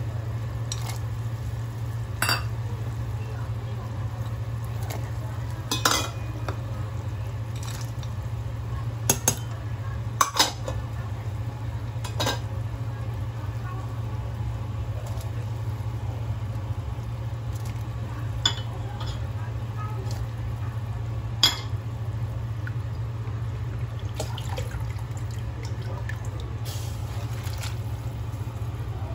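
Metal bowls and utensils clinking against a stainless steel stockpot a handful of times as ingredients are added to boiling water, over a steady low hum.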